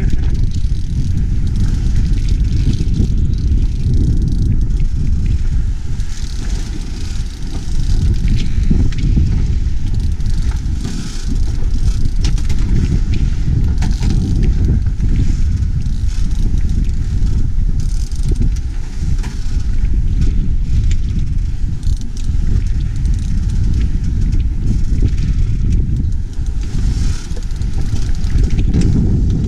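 Heavy wind buffeting the microphone in a steady low rumble, over the rush of sea water past a sailing boat's hull.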